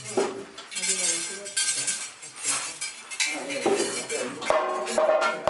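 Repeated metallic jingling and clinking, bright and irregular. A sustained musical tone joins near the end.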